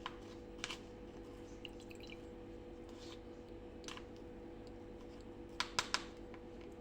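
Faint clicks and light taps of kitchen utensils, scattered singly and then three close together near the end, over a steady low hum.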